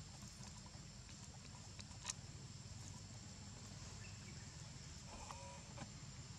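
Faint forest ambience: a steady high insect drone over a low rumble, with a single sharp click about two seconds in and a short faint call a little past five seconds.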